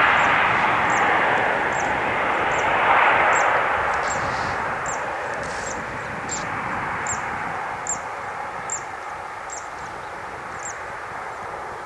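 Airbus A320 on its landing rollout: the rushing noise of its jet engines fades steadily as the airliner slows and moves away, with a brief swell about three seconds in. A short high chirp repeats about twice a second above it.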